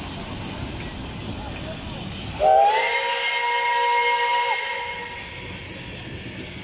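P36-class steam locomotive's whistle sounding one blast of about two seconds, several tones at once, rising briefly at the start and then held steady before cutting off. It comes about two and a half seconds in, against a steady hiss of steam that carries on after it.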